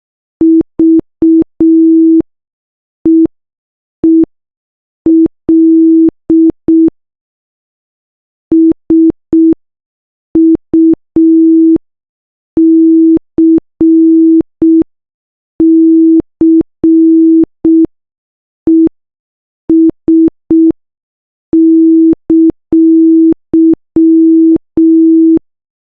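Morse code sent as a single steady beep tone, keyed on and off in short dots and long dashes, with pauses between letters and words.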